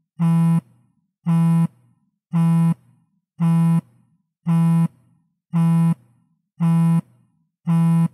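iPhone vibrating on a table in repeated short buzzes, each about half a second long and coming about once a second, eight in all.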